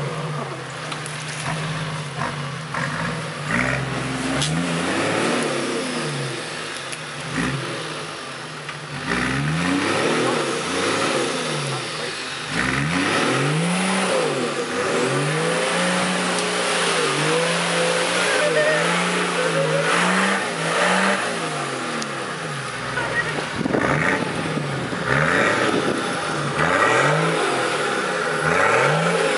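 Toyota Land Cruiser 70's engine revving up and down over and over as it is driven through a mud hole, its pitch rising and falling in repeated surges.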